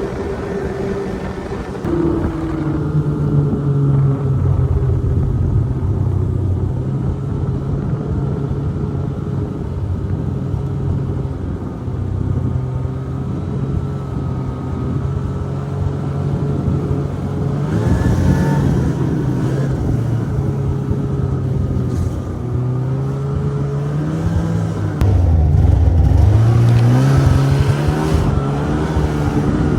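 Snowmobile engine running under way, its pitch wavering with the throttle, dipping and then climbing sharply as it revs up near the end.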